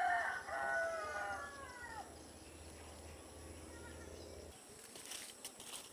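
A rooster crowing once, a long crow whose pitch falls away at its end, over the first two seconds; a few faint rustles or clicks near the end.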